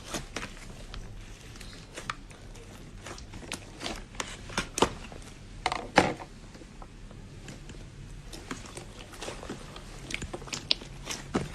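Slime being squished and worked by hand, giving scattered small wet pops and clicks; the loudest pop comes about six seconds in.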